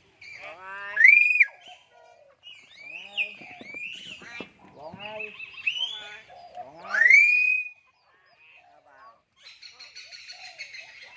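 Hill mynas calling, a run of speech-like chatter and mimicked sounds mixed with whistles. Two loud rising whistles stand out, about a second in and again about seven seconds in, and busy high chatter comes near the end.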